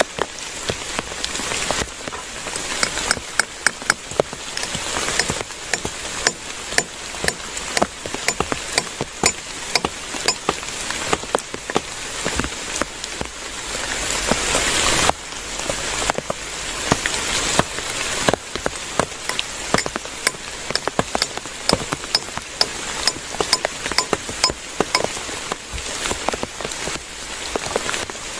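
Steady rain falling, with many sharp drops striking a surface close by at irregular intervals.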